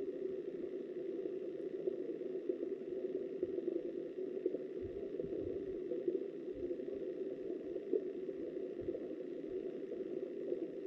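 Steady, muffled rush of river water heard through an underwater camera, with a few faint low knocks.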